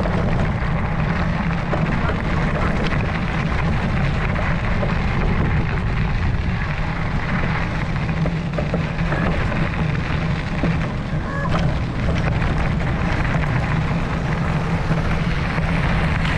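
Steady wind rumble buffeting the microphone of a camera on the move, a heavy low roar with no break.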